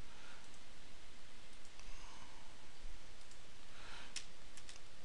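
Scattered clicks of computer keyboard typing over a steady background hiss, the keystrokes coming more often near the end.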